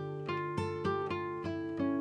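Background music: an acoustic guitar picking single notes, about three to four a second, each note ringing on.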